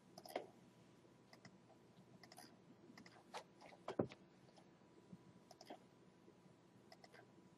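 Faint, scattered clicks of a computer mouse, about eight in all, the sharpest about four seconds in, against near silence.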